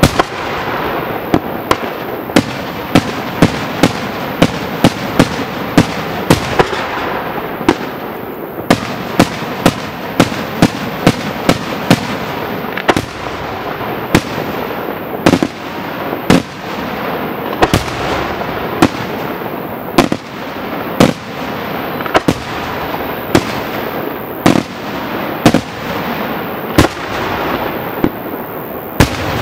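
Aerial firework shells bursting in quick succession: sharp bangs about one to two a second, with a steady rushing noise between them.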